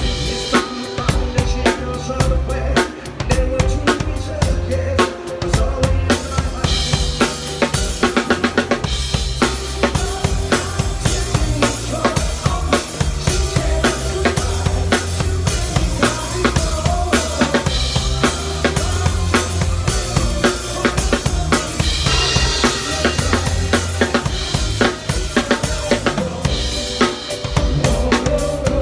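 Drum kit played along to a Thai pop backing track: kick and snare keep a steady beat under bass and melody lines. Cymbals come in about six seconds in, with a quick run of drum hits a couple of seconds later.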